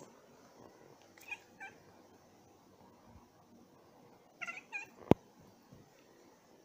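Domestic cat chirping in excitement at birds outside the window: two short chirps, then a quick run of three a few seconds later. A single sharp click follows the run and is the loudest sound.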